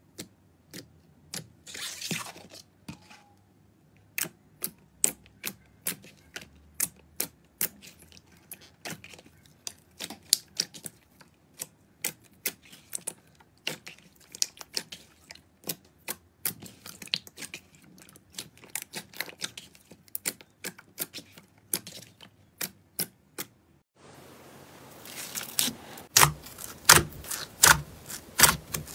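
Slime being handled, giving a string of sharp, irregular crackling clicks, a few a second. About 24 s in the crackle turns louder and denser over a steady hiss.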